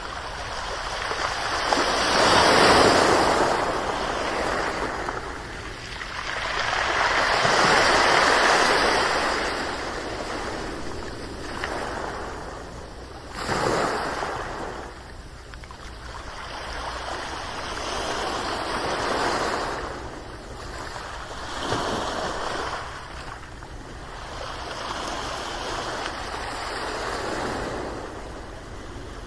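Ocean waves breaking on a shore in a series of surges, each a hissing wash that swells and fades over a few seconds. The biggest come early, with a short sharp break about halfway and gentler ones after.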